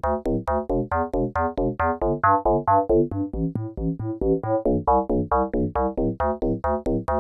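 Modor NF-1 virtual analog synthesizer playing a fast sequenced pattern of short, plucky notes over a bass line, about six notes a second.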